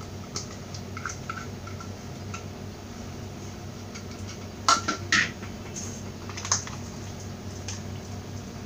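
Small clicks and scrapes of a mixer-grinder jar and its lid being handled as ground spice paste is scraped out by hand, with a few louder metal clinks about halfway through and one more a little later.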